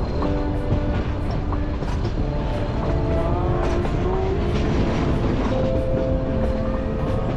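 Nilgiri Mountain Railway train running, a steady rumble of the carriage rolling on the track. Short held tones at shifting pitches come and go over it.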